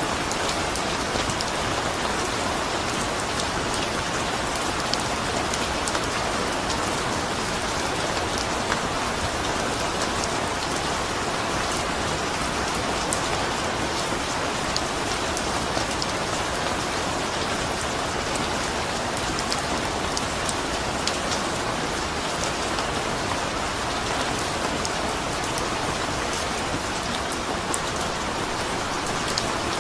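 Steady rain falling, an even hiss of rain with many small drops ticking on a surface, with no change in intensity.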